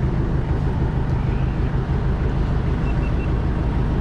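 Small motor boat's engine running steadily, a low even drone under water and air noise.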